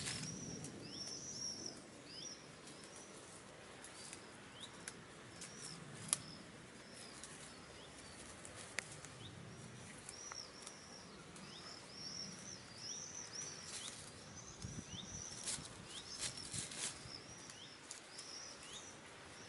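A small bird chirping in runs of short, high, arched notes repeated several times a second. Under it come the scattered clicks and rustles of hens pecking and scratching in grass.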